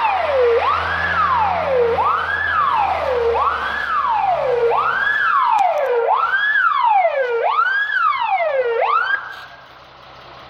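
Fire engine's siren wailing in a repeating sweep, each quick rise followed by a slower fall, about once every second and a half, with the truck's engine running underneath. The siren cuts off about nine seconds in, leaving the quieter engine.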